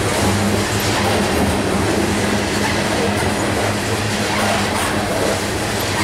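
Freight train's open-top hopper cars rolling past at close range, a steady noise of steel wheels running on the rails.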